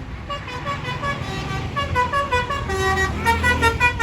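A bus's multi-tone telolet horn playing a quick melody, its notes stepping up and down several times a second and growing louder toward the end, over the low rumble of the bus engine.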